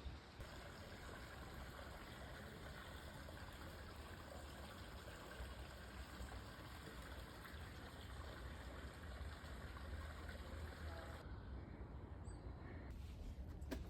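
Faint, steady rush of flowing water, with a few light clicks near the end.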